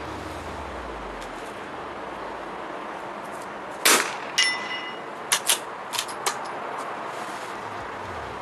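A single shot from a CZ 457 Jaguar .22 LR bolt-action rifle, followed about half a second later by a ringing metallic clang. Then four quick clicks within about a second as the bolt is worked for the next round.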